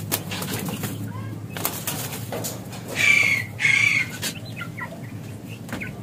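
Pigeon wings flapping in short bursts as the bird is chased to be caught inside a wire-mesh pen, then two short squawks from a chicken about three seconds in.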